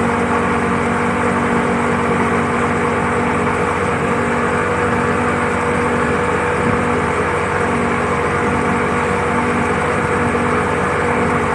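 Speedboat's outboard motor running steadily at cruising speed, a constant drone over the rushing churn of its wake.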